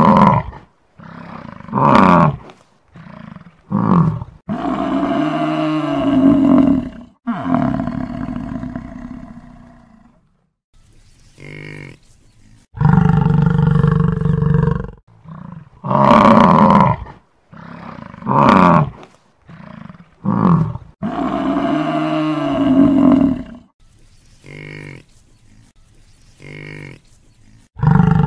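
Buffalo bellowing and grunting: a string of deep calls, some short and some held for a couple of seconds, with pauses between them.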